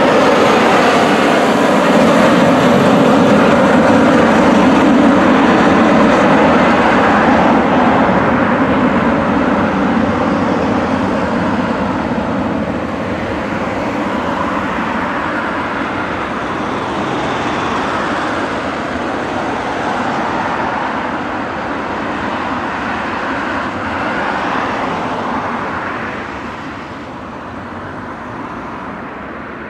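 Twin jet engines of a British Airways Airbus A320-family airliner at climb power just after takeoff: a loud, steady roar that slowly fades as the jet climbs away, dropping off further near the end.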